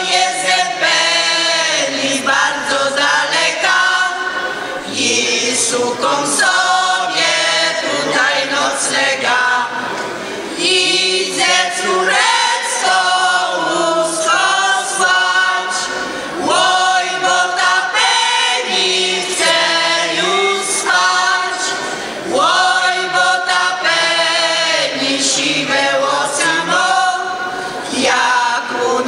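Folk vocal ensemble of women's and men's voices singing a traditional Polish folk song a cappella, in phrases of about six seconds separated by short pauses.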